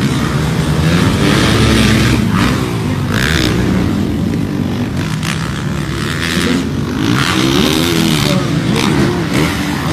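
Motocross dirt bike engines revving up and down as the bikes race around a dirt track, the pitch rising and falling over and over.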